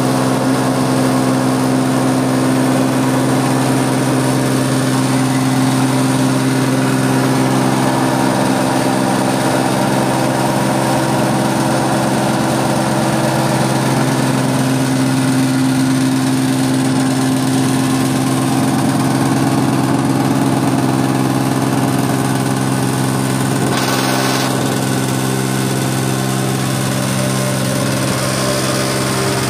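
Small hammer-mill stone crusher, driven by a three-phase electric motor, running steadily: a constant hum under an even rattling hiss. Late on, a brief burst of hiss lasting under a second.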